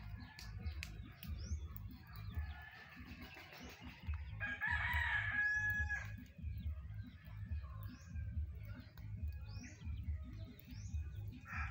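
A rooster crows once, about four seconds in, in one long call of about a second and a half. Small birds chirp in short rising notes around it, over an uneven low rumble on the microphone.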